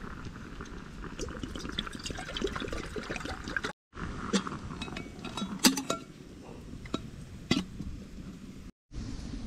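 Water poured from a canteen into an aluminium camp kettle in a steady stream for about four seconds. After that come several sharp metal clinks as the kettle is set down on top of an aluminium cooker pot; the loudest clink comes about two seconds after the pouring stops.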